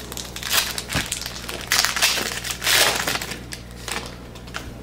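Foil trading-card pack wrapper being torn open and crinkled by hand, in irregular rustling bursts. The loudest bursts come about two and three seconds in.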